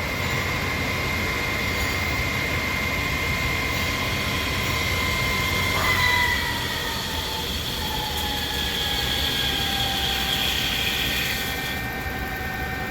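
Hankook Protec-7NA CNC lathe running a cut: a steady machining noise with a clear whine that slips lower about halfway through and keeps falling slowly until it fades near the end.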